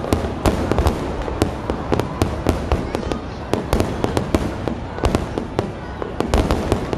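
Fireworks display: a rapid barrage of aerial shells bursting, several sharp bangs a second over a continuous low rumble.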